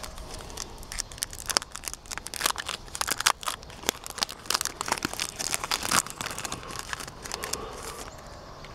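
Foil wrapper of a retail trading-card pack crinkling and tearing as it is ripped open by hand: a dense run of crackles that thins out over the last couple of seconds.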